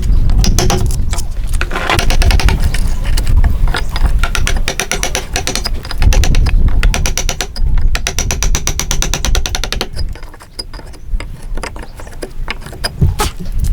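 Hand tool cutting wood, a rapid rasping run of fine clicks that eases off about ten seconds in.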